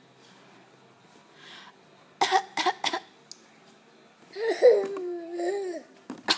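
Deliberate fake coughs: three quick coughs about two seconds in, a drawn-out vocal sound, then more coughs at the end.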